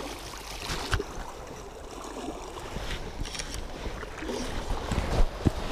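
Flowing river water rushing steadily, with a sharp knock about a second in and a few more knocks near the end from the fly rod and its mounted camera being handled.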